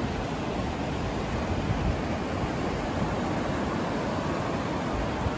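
Steady rush of surf breaking offshore and washing up a sandy beach.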